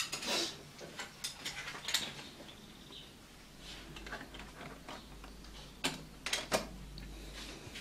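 Cardboard smartphone boxes being handled and shifted on a desk: scattered light taps and scrapes, with a quick run of three sharp clicks about six seconds in.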